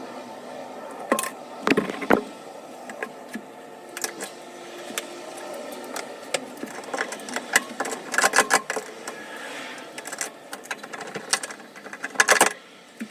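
Irregular clicks, taps and metallic clatter from hand tools and small metal parts being handled, with quick runs of knocks about two thirds of the way in and again near the end.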